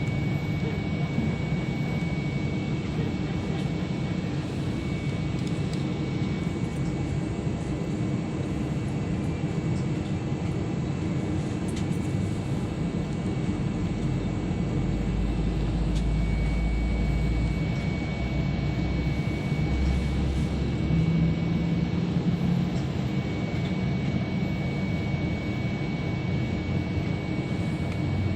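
Jet airliner cabin noise: the steady rush of the engines and airflow heard from inside the passenger cabin, with a thin high steady tone. A deeper rumble swells a little past the middle.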